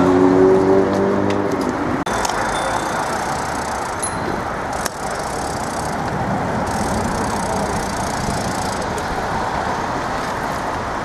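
Steady wind and rolling noise from riding a bicycle in a large group of cyclists along a city street, with road traffic mixed in. For about the first two seconds a droning pitched tone sounds over it, then cuts off abruptly.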